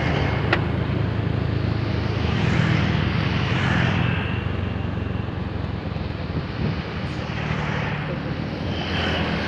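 Double-decker bus's diesel engine running with a steady low drone under a wash of road noise, with one sharp click about half a second in.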